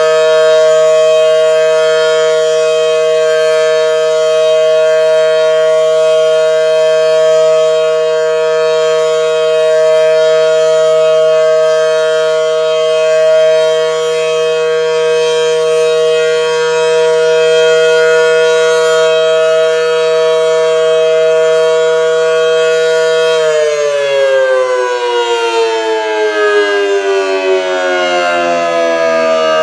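Federal Model 5T outdoor tornado warning siren sounding its steady alert tone, a loud two-note chord. A little over 23 seconds in, the pitch starts sliding steadily down as the siren winds down.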